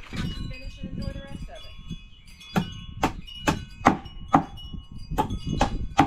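Wind chimes ringing, then from about two and a half seconds in a small hammer tapping nails into a wooden beehive frame, about two sharp strikes a second.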